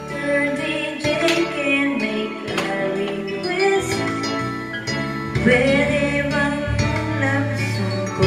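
A woman singing karaoke into a microphone over backing music with guitar.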